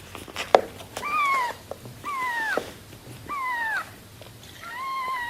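Baby kittens meowing: four high-pitched cries about a second apart, each dropping in pitch at its end. A sharp click sounds about half a second in.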